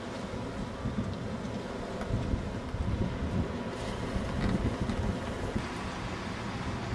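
Wind buffeting the camcorder's microphone: a steady, uneven low rumble.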